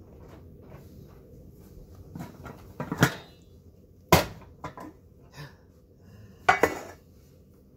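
Stainless steel cooking pot and its lid knocking against each other and the wooden table top as they are picked up, set down and handled: a few sharp metallic clanks, three of them louder, among lighter knocks.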